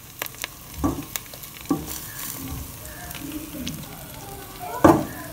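Egg-and-flour batter sizzling in hot coconut oil as it is poured into a pan in circles, with a few knocks, the loudest near the end.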